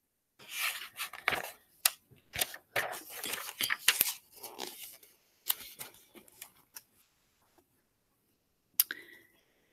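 Paper pages of a hardcover picture book being turned by hand: a run of short rustles and crackles for several seconds, then one brief crackle near the end.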